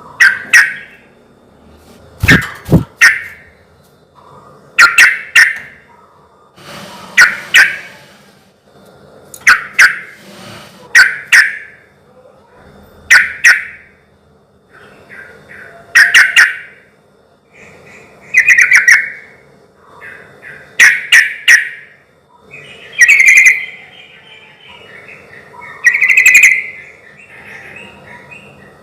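Yellow-vented bulbul (trucukan) singing short, loud, bubbly phrases, about one every two to three seconds.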